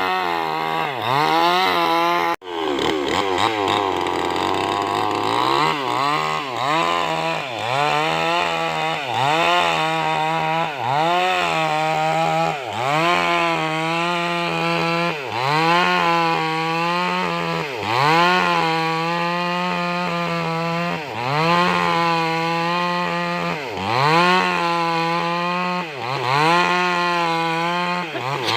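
New West 588 two-stroke chainsaw running under load while cutting wood, its engine note sagging and picking back up every one to three seconds. There is a brief dropout about two seconds in.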